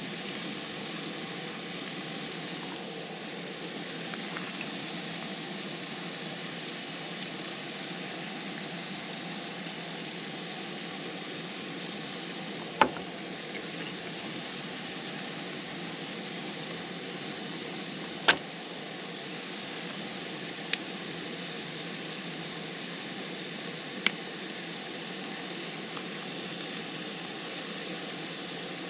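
Taco filling frying in a skillet on a propane camp stove, a steady sizzle, with four sharp clicks spread through the middle of the stretch.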